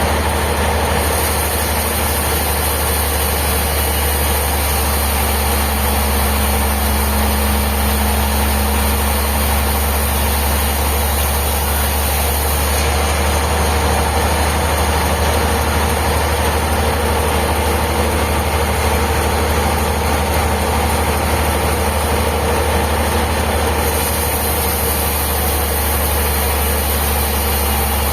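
Sawmill machinery running steadily with a constant low drone.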